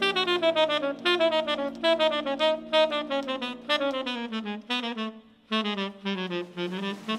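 Tenor saxophone soloing in a small jazz band, playing quick runs of notes with a brief pause about five seconds in, and piano under it.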